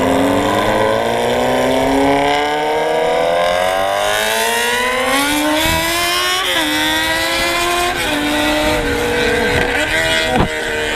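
Sport motorcycle engine accelerating hard, its pitch climbing steadily for about six seconds. The pitch drops at a gear change, then the engine holds high revs with a couple of brief dips near the end.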